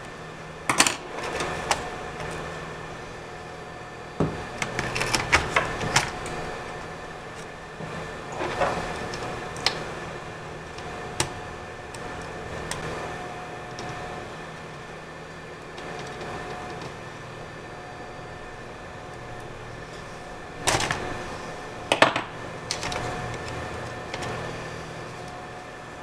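Plastic palm-rest cover of a Toshiba Satellite laptop being unclipped and lifted off its base: scattered sharp clicks and snaps of plastic and handling, a quick cluster about five seconds in and two loud snaps near the end, over a faint steady hum.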